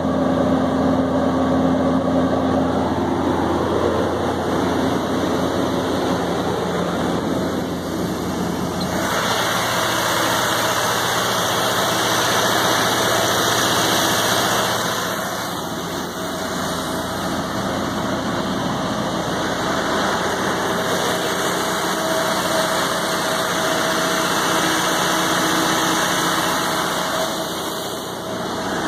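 A John Deere 4045HF285 four-cylinder turbo diesel running steadily at 1800 rpm as it drives a 95 kW generator, loaded to about 96 kW at 60 Hz. About nine seconds in, the sound turns brighter and hissier.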